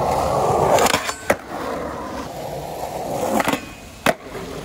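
Skateboard wheels rolling over smooth paving, broken by sharp clacks of the board about a second in and again near the end, when the board pops for a trick over a low ledge and comes down.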